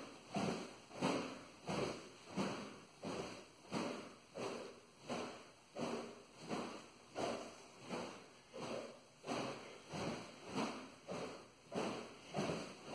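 A sword blade swishing through the air in quick repeated cuts, about two whooshes a second, each swelling and dying away.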